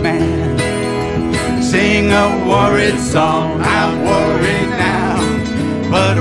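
Acoustic string band playing live in a country-bluegrass style: strummed acoustic guitar and mandolin with a man singing the lead vocal.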